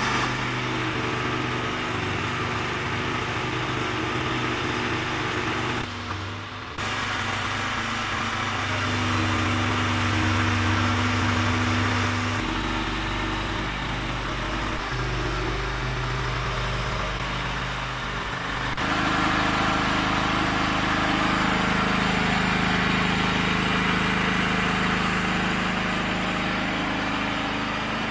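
Homemade horizontal bandsaw mill driven by a 13 hp petrol engine, running steadily while sawing through a poplar log. The engine's note shifts several times, with a brief drop about six seconds in.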